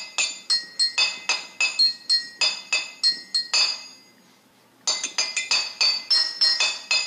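Intro jingle of quick, bright struck notes that ring and die away, about three a second, with a pause of nearly a second midway before the strikes resume.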